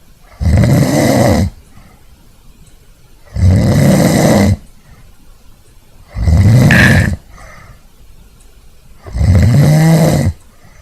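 A man snoring loudly: four long snores about three seconds apart, with quiet breathing in between.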